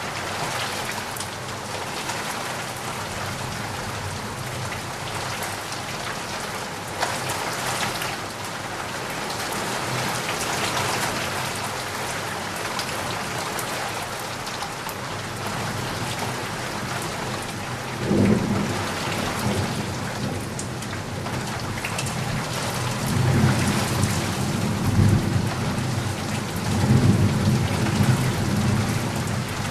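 Heavy rain falling steadily, with thunder: a sudden clap a little past the middle, then rolling rumbles near the end.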